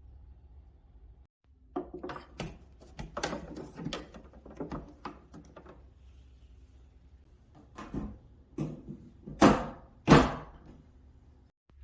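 Winix air purifier's plastic housing and filters being handled: a run of plastic clicks, knocks and rustling, then two loud swishes about nine and ten seconds in as filters are slid and fitted in place.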